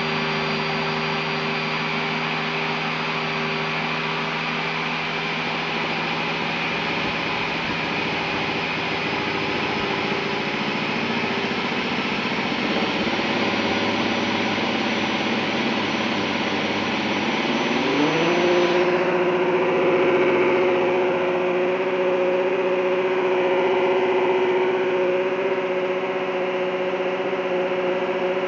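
47cc Chuanqi V12 model petrol engine being spun over by an electric drill on its crank pulley, the drill motor whining steadily. About eighteen seconds in, the engine pitch rises as it catches. The drill whine then cuts off, and the V12 runs steadily on its own.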